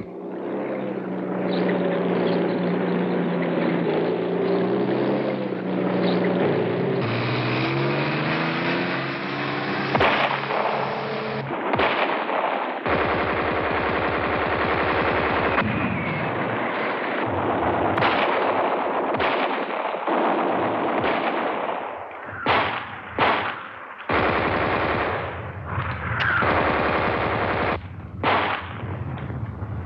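Gunfire: rapid machine-gun bursts running almost without a break, with single sharp shots standing out, more thickly in the last third. Under the first several seconds there is a low drone whose pitch wavers.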